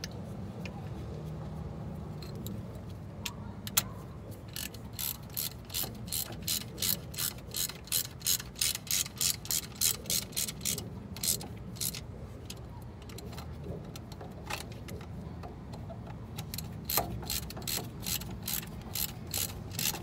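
Ratchet wrench clicking in quick runs as bolts are run back in on a BMW rear brake caliper, a longer run in the middle and a shorter one near the end.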